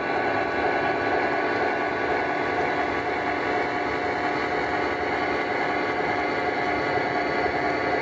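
O-gauge Lionel model train rolling past on FasTrack: a steady, even rumble and hum from the passenger cars and locomotive running on the track.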